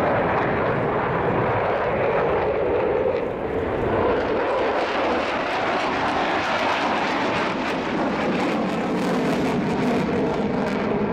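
F-15J Eagle fighter's twin F100 turbofan engines, a steady loud jet roar as the jet manoeuvres overhead. A crackle runs through the sound in the second half.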